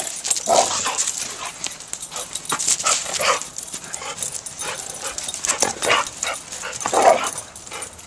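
Dogs playing rough together, giving a couple of short barks, about half a second in and again near the end. Under them runs a string of scuffles and clicks.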